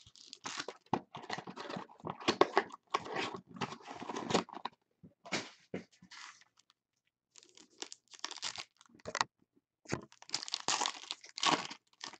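Foil wrappers of Bowman Chrome baseball card packs crinkling and tearing as they are opened by hand. The crackles come irregularly, with short pauses about six and nine seconds in.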